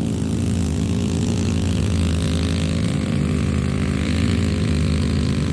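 A large engine running steadily at one even speed, a low mechanical drone with no rise or fall.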